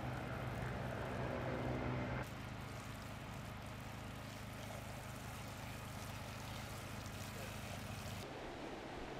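Water from a garden hose running and splashing over a hippo's head, over a steady low mechanical hum. The sound drops abruptly about two seconds in.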